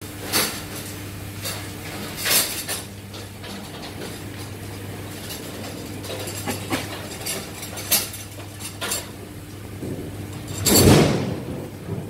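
Cattle feeding at a trough behind a rail, with irregular metallic clinks and knocks, over a steady low hum. A louder, longer clatter comes near the end.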